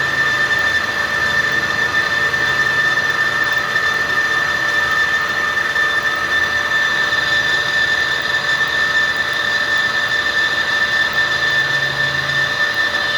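Metal lathe cutting steel, with a steady high-pitched squeal from the cutting tool over the machine's running noise.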